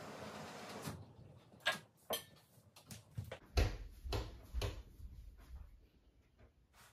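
Faint, scattered knocks and soft thuds of a person moving about and handling things, about ten spread over several seconds, after a faint steady hiss in the first second.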